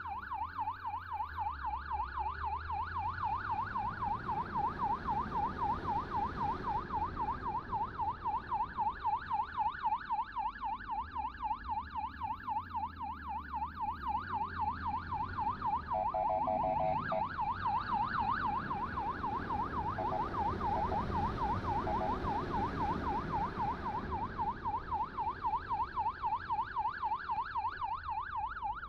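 Electronic siren on a motorcycle sounding a fast yelp, its pitch sweeping up and down about four times a second. About 16 seconds in it switches briefly to a steady blaring tone. Motorcycle engine and road rumble run underneath.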